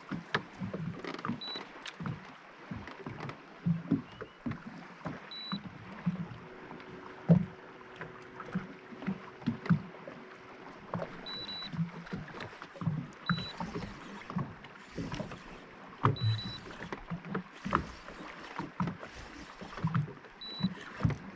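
Small waves lapping and slapping against the hull of a small boat, irregular low knocks. A few short, high beeps come through now and then.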